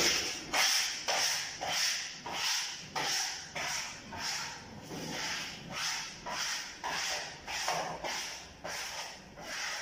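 Hand rubbing wallpaper flat against a ceiling, a run of swishing strokes about two a second.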